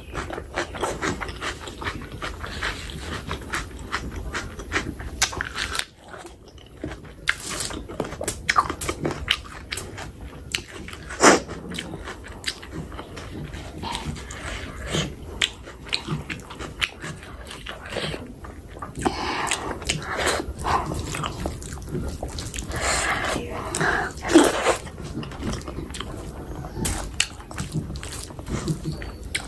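Close-miked mouth sounds of a person eating oily chicken skin curry and rice by hand: chewing, wet lip smacks and finger-licking, in a steady run of short clicks and squelches.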